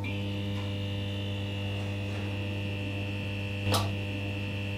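Steady electrical hum of a neon sign, with a thin high whine over it and a short crackle about three and a half seconds in.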